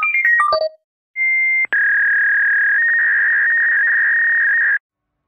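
A quick run of electronic beeps stepping down in pitch. After a short gap comes a steady, high-pitched electronic tone that drops a little in pitch with a click about a second and a half in, holds for about three seconds and then cuts off suddenly.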